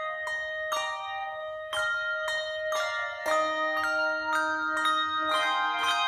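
Handbell choir playing a tune: handbells struck one after another, each note ringing on and overlapping the next, with a lower bell joining about three seconds in.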